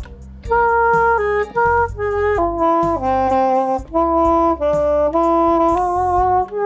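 Nuvo jSax 2.0, a small plastic reed instrument played like a saxophone, playing a slow melody of held notes that step up and down, with a short break just after the start.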